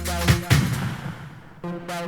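Speed garage dance music. Drum hits and deep bass stop about half a second in, a cymbal-like wash fades away, and a held synth chord comes in near the end.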